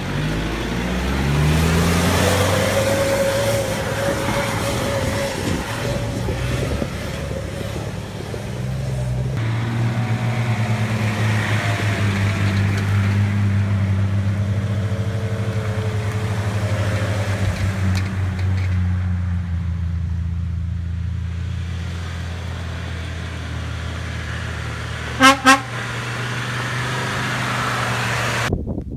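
Off-road 4x4s, Nissan Patrols and a Land Rover Defender, drive past one after another on a dirt track, engines running. The engine note rises as the first one pulls away. About 25 seconds in, a car horn gives two short toots.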